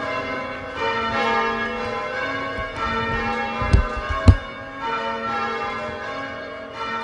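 Cathedral tower bells cast by John Taylor & Co. in 1910, rung as call changes, their strokes overlapping into a continuous peal. Two sharp knocks a little past halfway are the loudest sounds.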